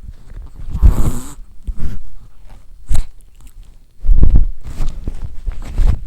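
A sleeping Chihuahua snoring and snuffling close to the microphone: a string of irregular noisy breaths. The loudest is about a second in, and a cluster runs through the second half.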